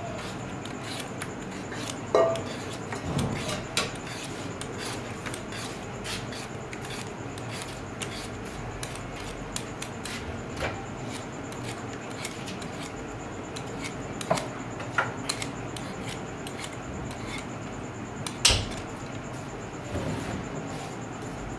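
Y-peeler scraping the skin off raw potatoes in short strokes, with light clicks and scrapes and a sharper knock a little before the end.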